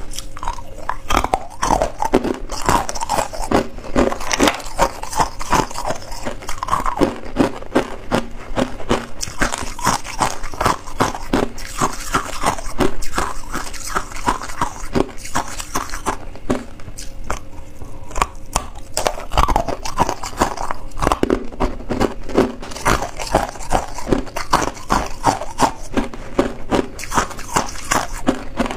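Hard ice being bitten and crunched between the teeth: a dense run of crackling crunches, with a lull of about two seconds around the middle.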